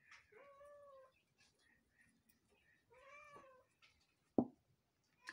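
A cat meowing twice, each meow rising and falling in pitch, with a single sharp knock about four seconds in.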